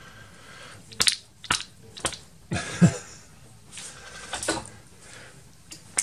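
A small magnetic-drive fountain pump being shaken hard by hand to knock its magnetic rotor out of the housing: a few sharp clicks and knocks in the first three seconds, swishing rustles of the swinging arm, and one more click near the end.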